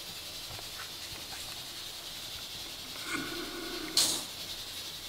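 Faint steady hiss with light handling noise: a short muffled rustle about three seconds in, then one sharp knock about four seconds in.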